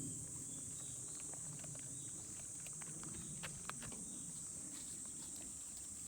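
Steady, high-pitched chirring of an insect chorus, with scattered light clicks and ticks that bunch up around the middle, one sharper click among them.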